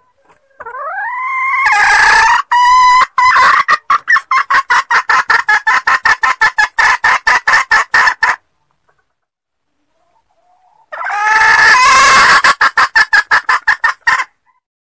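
Female junglefowl (hen) calling in two bouts. Each bout opens with a drawn-out rising squawk and breaks into a fast, even run of clucks, about five a second. The first bout starts about half a second in and runs about eight seconds; the second, about eleven seconds in, is shorter. This is the hen call used as a lure to draw wild junglefowl.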